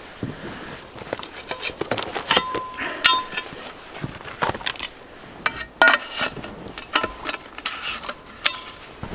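Irregular sharp clicks, knocks and light metallic clinks from a collapsible snow shovel being pulled from a backpack and its shaft and blade fitted together, with the rustle of gear being handled.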